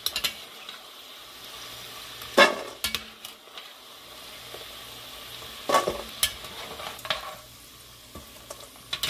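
Crinkle-cut fries sizzling steadily in hot oil in an enamelled Dutch oven, with tongs and a spoon knocking and scraping against the pot as the fries are stirred and lifted out, loudest about two and a half and six seconds in.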